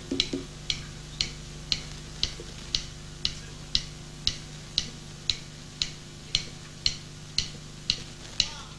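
Steady time-keeping ticks, about two sharp clicks a second at an even tempo, over a low steady hum.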